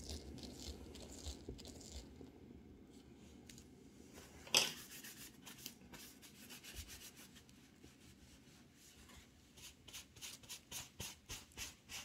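Faint rubbing and low rumble of a spinning painting turntable, with one sharp click about four and a half seconds in and a run of quick light ticks near the end.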